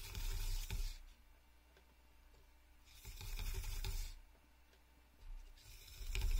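Rustling rub of cord being handled and pulled, in three bursts of about a second each, with dull handling bumps under them.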